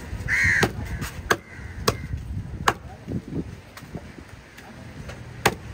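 Large machete-like knife chopping fish on a wooden log chopping block: several sharp chops in the first three seconds, then one more after a pause. A crow caws once at the start.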